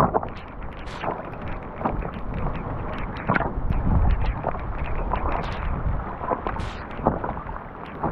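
Rain and stormwater runoff rushing down a rock riprap channel, with wind buffeting the microphone. Footsteps sound about once a second.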